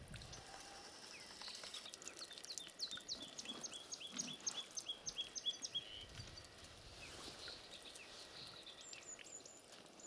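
Faint bird calls: a run of quick, falling high notes, about three a second, lasting several seconds. Near the end there are a few thin, higher notes.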